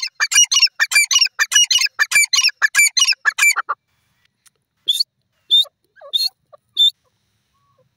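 Grey francolin calling: a loud, fast run of harsh notes, about five a second, that stops after about three and a half seconds, followed by four single higher calls about half a second apart.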